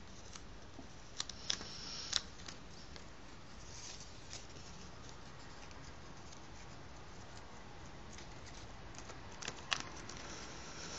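Paper strip being folded and creased by hand: faint rustling of the paper with a few sharp, crisp snaps as creases are pressed, three of them about a second or two in and a couple more near the end.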